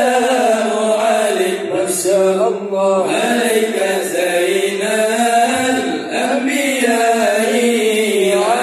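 Acehnese dike: men chanting devotional maulid verses together into microphones, one continuous melodic group chant without instruments.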